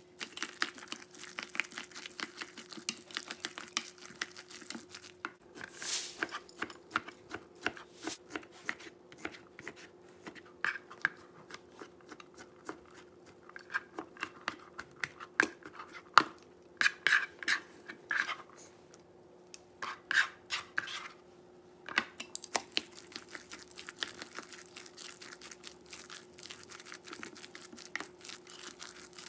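A silicone spatula stirring and scraping a thick tofu-and-vegetable batter in a stainless steel bowl, with many small clicks and scrapes. Around the middle, a knife chops bacon on a plastic cutting board with quick taps.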